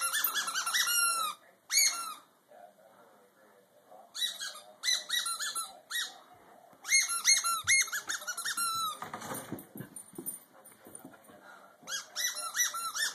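Beagle whining in rapid, high-pitched yips, several a second, in bursts with short pauses between. About nine seconds in there is a short patch of scuffing knocks.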